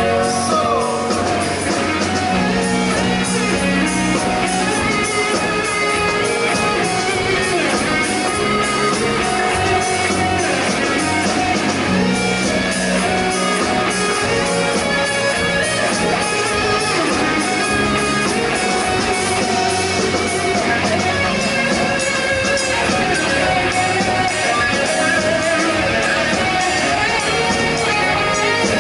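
Live rock band playing loud through stage amplifiers: electric guitars over a bass guitar line.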